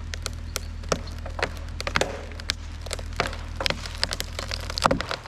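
Wood cracking and splintering in many sharp, irregular snaps over a steady low engine drone. The drone stops near the end.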